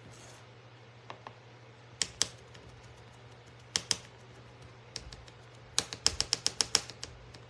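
Light, sharp taps of a thin painted wooden cutout clicking on the tabletop while paint is dabbed onto it: a few scattered taps, then a quick run of about ten taps near the end.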